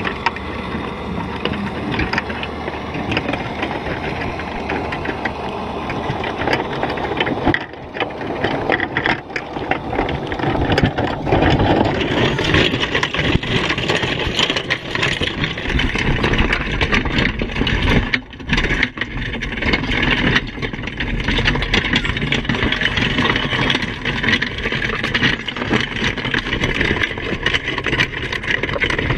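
Muffled rushing and knocking from a camera fixed inside a wire crab pot as the pot, packed with crabs, is hauled up out of the water to a boat, over a steady low engine-like rumble that grows stronger in the second half.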